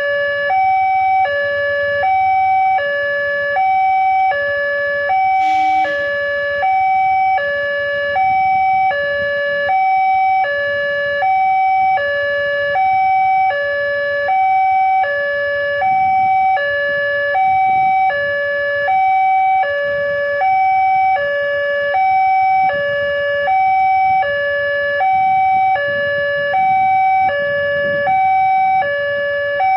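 Railroad level-crossing warning alarm sounding an electronic two-tone signal, high and low tones alternating about once a second, with the barrier down for an approaching train.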